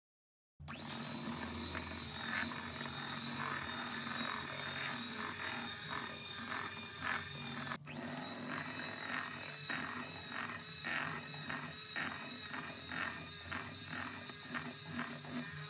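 Electric hand mixer running steadily with its beaters in thick cake batter: a constant motor whine and hum with a repeated soft slapping of the beaters through the batter. It starts about half a second in and breaks off briefly about eight seconds in.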